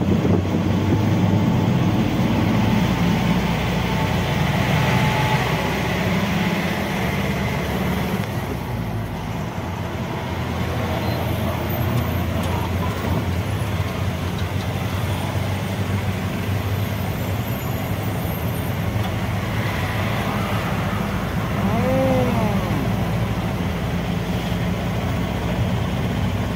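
A moving road vehicle: steady engine rumble with road and wind noise. About 22 s in, a brief pitched tone rises and falls.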